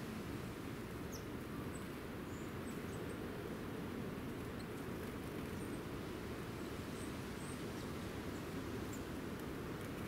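Steady low outdoor rumble, with faint, brief high chirps of small songbirds scattered through it.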